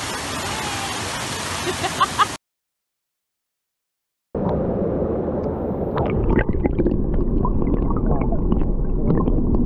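Steady rushing of a waterfall that cuts off abruptly. After about two seconds of silence, a different muffled, low rumble with scattered clicks begins and grows a little louder.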